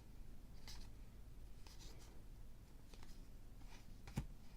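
Faint rustling and sliding of paper baseball trading cards being handled and flipped through, with one sharper tap a little over four seconds in.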